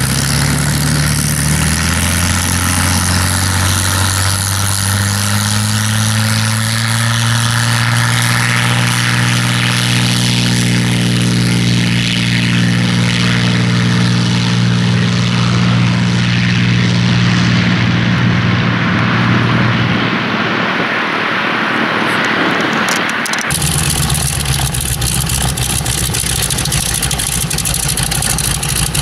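A Supermarine Spitfire's V12 engine at take-off power, rising steadily in pitch as the fighter accelerates down the runway, then fading as it draws away. About 23 seconds in, the sound cuts suddenly to a North American Harvard trainer's radial engine running at a steady idle.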